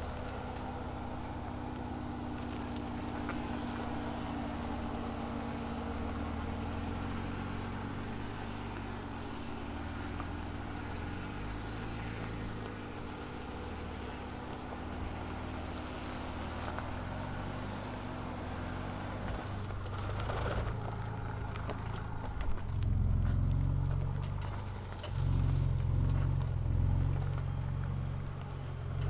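Ford Ranger Raptor's engine running as the pickup crawls over a rutted dirt track, steady at first, then two louder surges of the engine pulling under load near the end.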